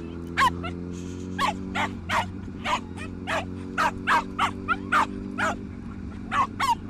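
A dog barking repeatedly in short barks, about two a second, over a steady low hum.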